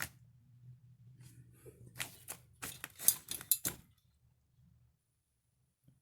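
A quick run of sharp clicks and knocks, like hard objects being handled and set down, clustered about two seconds in and lasting under two seconds, then near silence.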